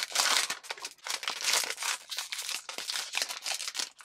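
Foil blind-box bag and the thin plastic bag inside it being torn open and crinkled by hand, an irregular rustling crackle throughout, as a small vinyl figure is unwrapped.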